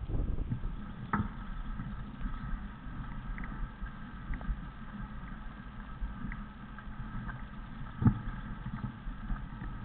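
A vehicle's motor running steadily while driving over a sand slope, with a rumble and two sharp knocks, one about a second in and a louder one near the end.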